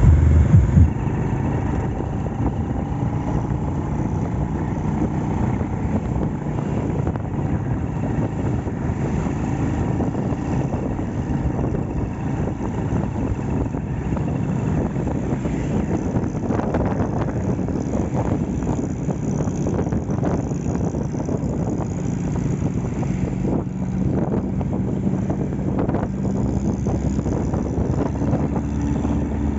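Restored Honda Astrea Grand underbone motorcycle's single-cylinder four-stroke engine running steadily under way, heard from on the bike.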